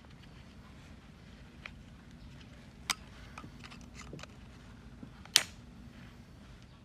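A few scattered sharp clicks and knocks, the loudest about five seconds in, over a faint steady hum.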